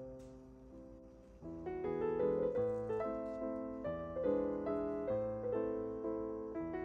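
Gentle background piano music: a few sparse notes, then fuller chords from about a second and a half in.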